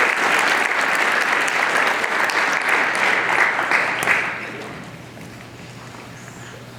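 Audience applauding, a dense clapping that dies away about four seconds in, leaving quiet room sound with a low steady hum.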